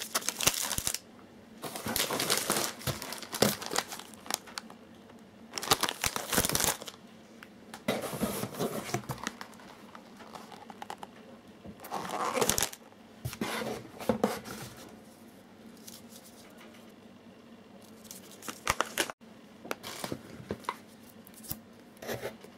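Packaged food being handled: plastic wrappers crinkling and cardboard product boxes rustling as they are lifted out and set down, in several bursts of about a second with quiet gaps between them.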